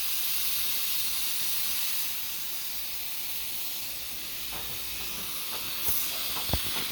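Compressed air hissing steadily from a leak in the lines of a homemade air compressor built from two refrigerator compressors, which run almost silently under it. Two short taps sound near the end.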